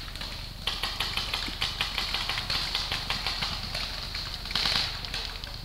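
Rapid, overlapping shots from skirmish-game guns firing during a woodland game, with a louder flurry about four and a half seconds in.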